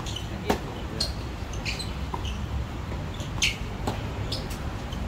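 Tennis rally on a hard court: sharp pops of racquets striking the ball, the two loudest about three seconds apart, with fainter hits and bounces in between, over a steady low rumble.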